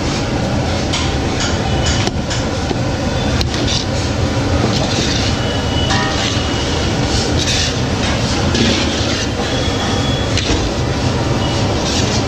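Machinery running with a steady, loud rumble, with scattered sharp clicks and clatter over it.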